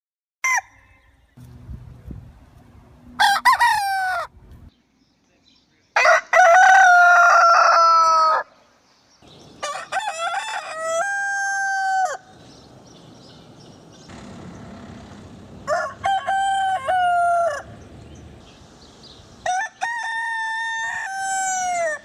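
Bantam rooster crowing five times, a few seconds apart, each crow high-pitched and ending on a long held note; the second crow is the loudest.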